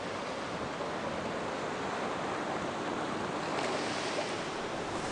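Steady rush of wind and sea waves on open water, heard aboard a sailing boat under way.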